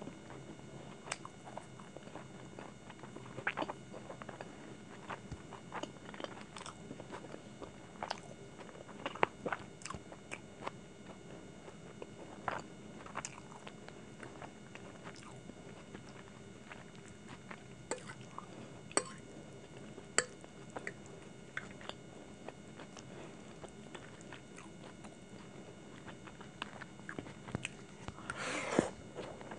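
Close-miked eating sounds: a person chewing soft, sauced noodles, with scattered sharp clicks and taps. Near the end comes a louder, denser burst as a forkful of noodles goes into the mouth.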